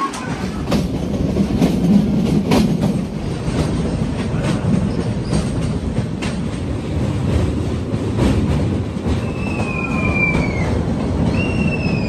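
Passenger train on the metre-gauge Goram Ghat line, heard from the open coach doorway: a steady rumble of wheels on rails with irregular clacks over the rail joints. From about nine seconds in, the wheels squeal high on the curving track.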